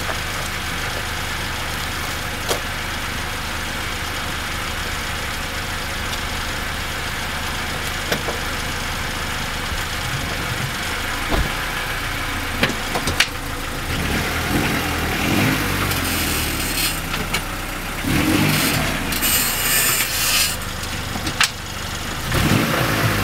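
1994 Honda Accord EX's F22B1 2.2-litre four-cylinder engine running steadily, with a few sharp clicks. From a little past halfway a louder, changing noise joins it, with pitch sweeping up and down and bursts of rushing noise: the weird noise the owner hears when stopping the car, which he rules out as brakes because the pads are new.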